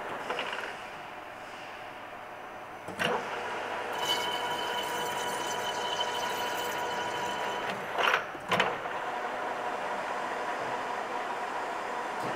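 Metal lathe running with its chuck spinning, a tool working a stainless steel tube. A steady tone sounds from about four to eight seconds in, with a clunk about three seconds in and two more around eight seconds in.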